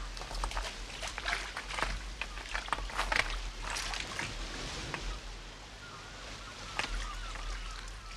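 Stones clicking and knocking together, with water sloshing, as rocks are shifted by hand in shallow water; faint bird calls come in during the last couple of seconds.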